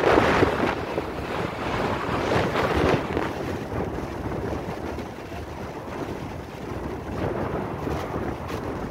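Blizzard wind blowing hard and buffeting the microphone, loudest in a gust right at the start, then a steady rushing noise.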